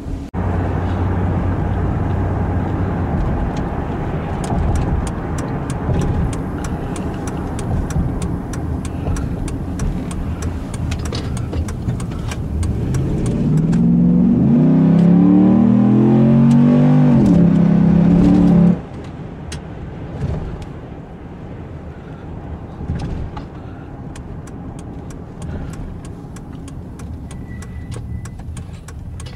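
A Dodge Ram pickup's 5.7-litre Hemi V8, heard from inside the cab, running steadily on the road. About halfway through it revs hard under heavy throttle for roughly five seconds, its pitch climbing in steps, then the throttle is suddenly lifted and it settles back to a quieter cruise.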